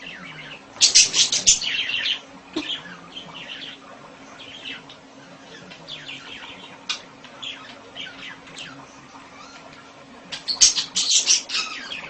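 Budgerigar chirping and chattering: a loud burst of rapid chirps about a second in, scattered single chirps after it, and another loud burst near the end.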